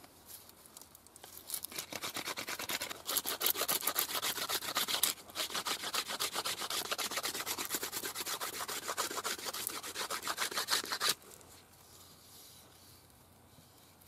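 Hardwood arrow shaft being rubbed down with a hand-held stone in quick back-and-forth rasping strokes, reducing its diameter. The strokes start about a second and a half in, pause briefly around the middle, and stop abruptly near the end.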